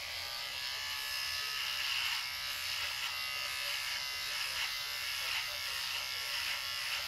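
Electric beard trimmer buzzing steadily while it is run along the beard at the jaw, its tone wavering slightly as the blades pass through the stubble.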